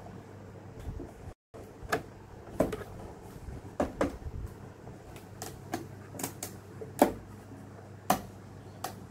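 Irregular light clicks and knocks of thin wooden model pieces being handled, slotted together and set against a wooden base, with two sharper knocks near the end, over a faint steady low hum.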